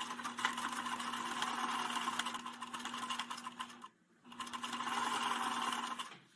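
Electric sewing machine stitching a fabric seam, with rapid needle strokes over a steady motor hum. It stops briefly about four seconds in, then runs again for about two seconds.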